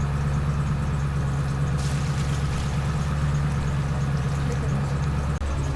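A steady, low engine-like hum.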